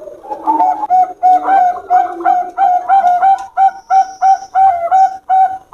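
Zebra dove (perkutut, Bangkok type) singing a fast series of short, clipped coos, about three to four a second. A lower, softer coo overlaps in the first second or so.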